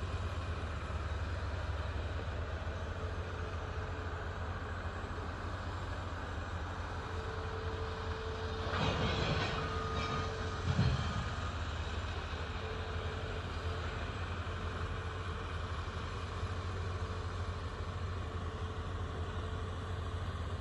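Heavy diesel work equipment running with a steady low rumble, a faint steady whine above it. About nine seconds in a rush of noise builds, ending in a single thump about two seconds later.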